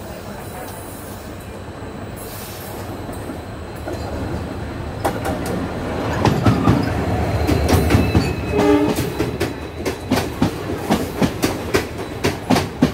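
An oncoming WDP-4D diesel locomotive passing close on the adjacent track, its engine rumble building to a peak as it goes by, with a short horn note about nine seconds in. Then its coaches pass with a quick, regular run of wheel clacks over the rail joints.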